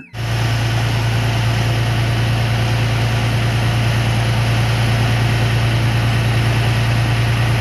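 Concrete mixer truck's engine running steadily at idle, a loud, even low hum.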